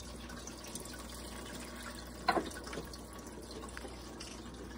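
Steady running water, with a short knock about two seconds in and another right at the end.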